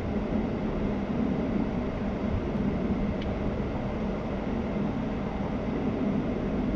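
Steady low hum of a stationary car's cabin, its engine idling and the air conditioning blowing, with no sudden sounds.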